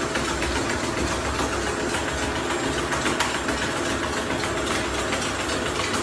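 A motor running steadily with a fast, even rattle.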